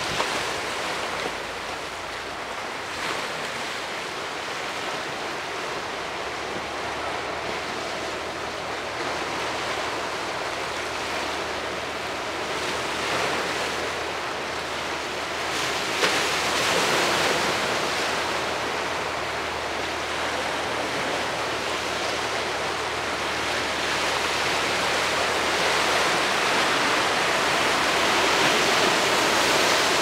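Sea surf washing over and breaking against large rocks on a stony shore: a continuous rush of water that swells with each breaking wave, with a sudden loud surge about halfway through and the heaviest breaking near the end.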